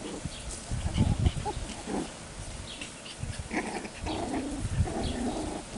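Six-week-old cockapoo puppies at play, giving short yips and little growls, with scattered low thumps.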